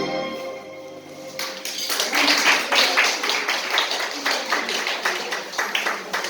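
Orchestral music ends in a fading held note, and about a second and a half in applause starts, many hands clapping unevenly until the end.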